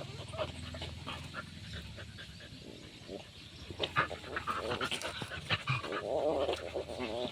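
A dog panting during play, with scattered short clicks and scuffles and a brief rough sound about six seconds in.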